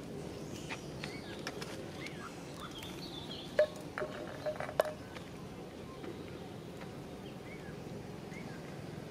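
Outdoor background: a steady low noise with scattered short high chirps, broken by a few sharp clicks a little past halfway.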